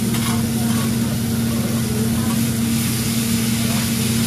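Steady low mechanical hum of a ventilation hood fan over a hibachi grill.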